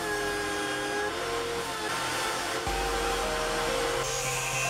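Electric hand-drill motor running steadily as a steel rod is ground against the spinning abrasive disc, under background music. About four seconds in, a higher whine comes in as an angle grinder starts on a bolt.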